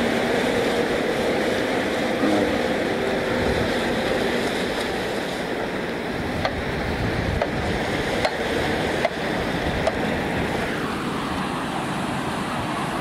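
Sea water washing and churning in the wake of a passing fishing trawler, with a low steady hum from the vessel in the first few seconds and a few light clicks later on.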